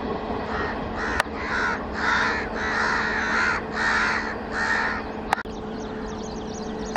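Crows cawing, a series of short caws over a steady low hum, stopping about five seconds in. A sharp click follows just after.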